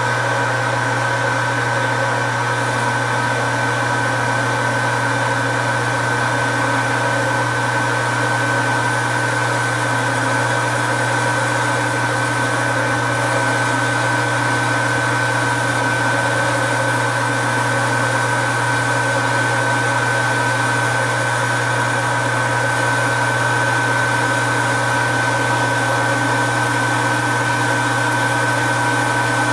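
Metal lathe running steadily under power while a radius tool cuts a steel knob: a constant motor and gear hum with a steady high whine.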